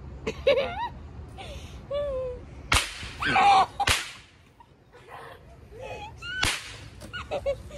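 Several sharp smacks, about four in all, with a loud noisy burst between the second and third and high, gliding squeals from kids in between.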